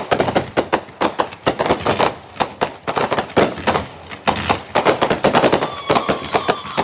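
Fireworks going off in rapid succession: many sharp bangs and crackles, several a second, with a steady high whistle from a whistling firework joining near the end.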